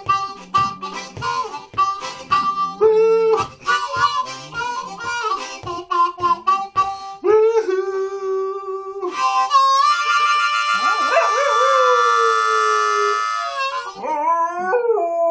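A harmonica plays a blues riff in short rhythmic chugs, then holds one long note. Over the held note a dog howls along, the howl sliding down in pitch, and howls again near the end.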